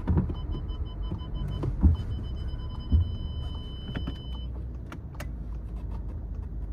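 Low steady hum of a VW Golf 7's engine idling, heard inside the cabin, with a thin high whine that stops about four and a half seconds in. Three dull thumps, the loudest near two and three seconds in.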